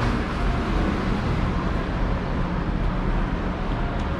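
Steady street traffic noise, a continuous low hum of passing vehicles.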